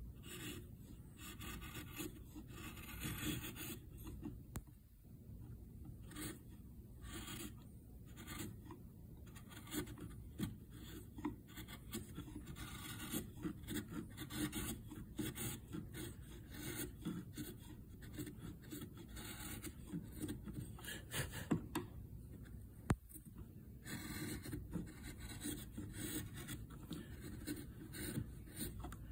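Steel hand chisel paring the corner of a hardwood face frame, shaving off thin curls to form a round over. It makes repeated scraping cuts of uneven length, with a few sharp clicks near the end.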